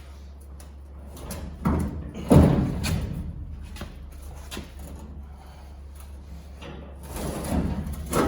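Sheet-metal body panel being pulled and worked back into shape: a few thuds and clunks of metal, the loudest about two seconds in and more near the end.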